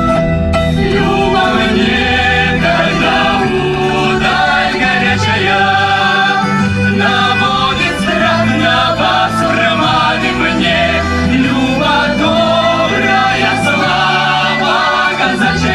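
A Cossack folk song: a choir singing over instrumental accompaniment with a steady bass line.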